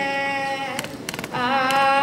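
Voices singing a slow song in long held notes, with a short break about a second in before the next phrase.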